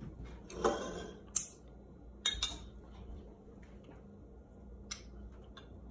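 Handheld plier-style olive pitter squeezed on olives, giving a few sharp metal clicks spread over the seconds as its plunger snaps shut.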